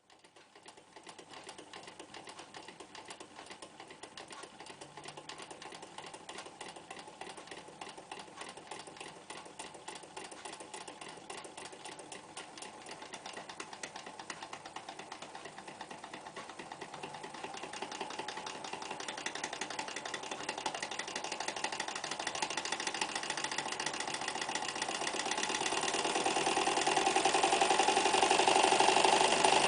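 Necchi Lycia electric sewing machine running, its needle mechanism clattering in a fast, even rhythm that grows steadily louder through the second half.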